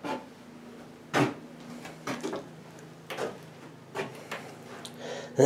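Footsteps on wooden floorboards, a short knock about once a second.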